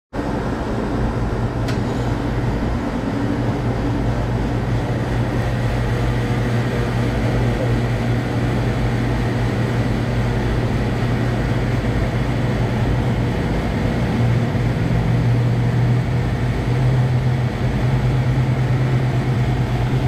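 A 1999 Bryant 4-ton central air conditioner condensing unit running: a steady mechanical hum of compressor and condenser fan. A low hum in it grows stronger about fifteen seconds in.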